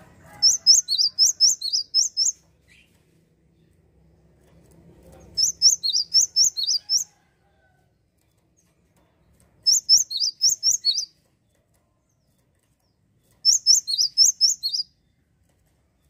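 Cinereous tit (gelatik wingko) singing: four bursts of quick, high, repeated notes, about four notes a second, each burst lasting one and a half to two seconds with pauses of a few seconds between.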